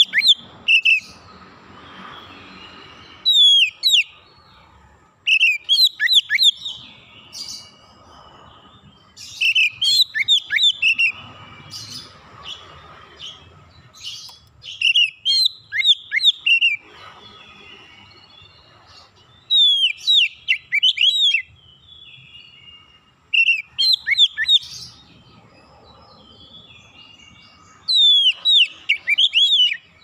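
Male Oriental magpie-robin (kacer) singing: short phrases of several sharp, downward-sliding whistles, repeated every few seconds with brief pauses between.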